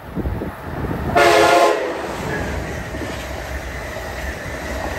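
Amtrak Acela high-speed electric trainset sounding one short horn blast about a second in, over the steady rumble of the train approaching and passing.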